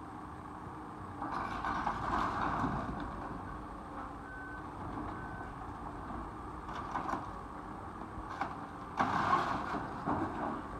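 Tracked excavator's diesel engine running steadily while its demolition grab tears into the wrecked wood-and-metal structure, with crunching and crashing debris about a second in and again near the end. Two short alarm beeps sound in between.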